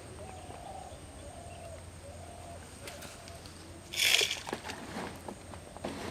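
A bird calling with faint, low wavering notes in the first half, then a brief loud rushing noise about four seconds in, followed by a few light clicks.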